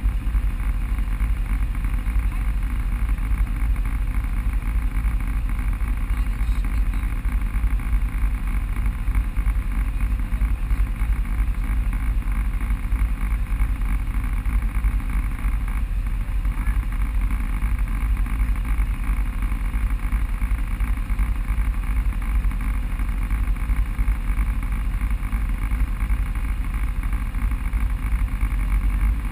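Off-road vehicle running steadily along a trail: a constant low engine and wind rumble with an even hiss over it, holding the same pace throughout.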